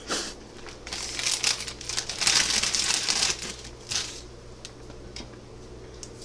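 Plastic instant-ramen packet crinkling and crumpling in the hands, in irregular bursts from about one to four seconds in, loudest around two to three seconds.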